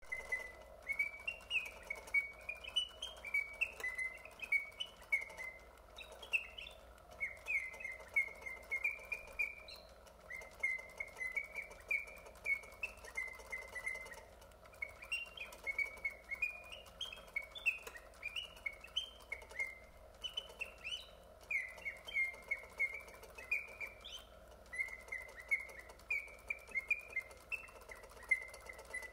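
Vintage automaton singing birdcage's mechanical bird whistling its song from a bellows-driven piston whistle: quick warbled chirps and trills that rise and fall in pitch, in phrases separated by brief pauses.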